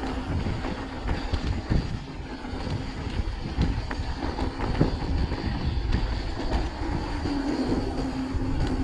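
Mountain bike rolling fast downhill over a gravel track, heard from a bike-mounted camera: a steady rumble of tyres and wind with many rattling clicks and knocks from the chain and frame over bumps.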